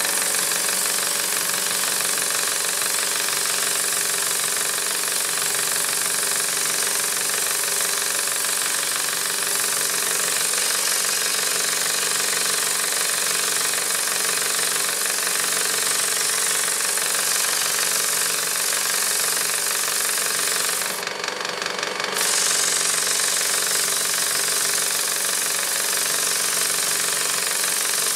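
Hegner scroll saw running with a strip of sandpaper clamped in place of the blade, a steady reciprocating buzz as the paper sands the inside edge of a plywood cut-out. About three quarters of the way through the sound briefly dips and loses its hiss, then carries on.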